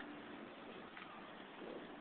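Low, steady background hiss: room tone.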